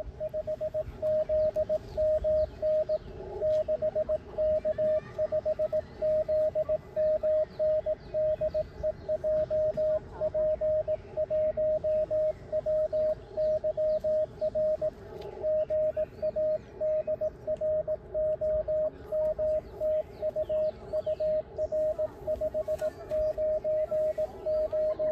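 Morse code (CW) from an amateur radio transceiver: a single steady tone keyed on and off in dots and dashes, running on almost without a break. It carries a call and signal report, "6K5ZMN DE JP1WYR … UR 599 5NN".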